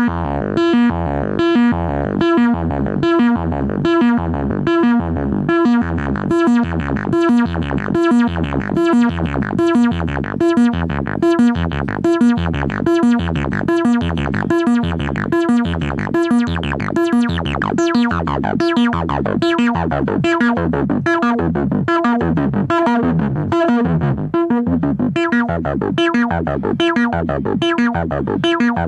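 Korg ARP 2600 reissue analog synthesizer playing a steady repeating sequence of short notes, about two a second, its upper tones sweeping up and down in places.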